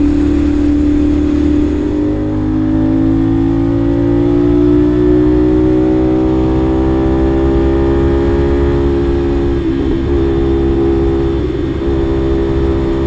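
CFMOTO 450SR's 450cc parallel-twin engine running at road speed. Its note dips briefly about two seconds in, then rises slowly as the bike accelerates and holds steady later on, over a constant low wind rush.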